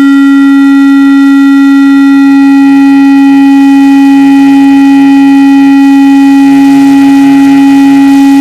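Loud electronic drone from pedals and electronic gear: one unchanging low tone with several steady higher tones above it and a faint fluttering pulse underneath. The upper tones grow a little stronger near the end.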